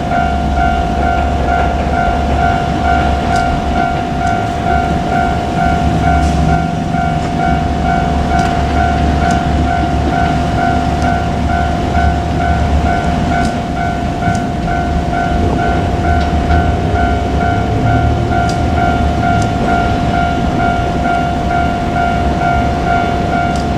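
Japanese level crossing alarm ringing in a steady, evenly repeating beat, over the low rumble of a JR Kyushu KiHa 47 diesel railcar train, with scattered wheel clicks on the rails.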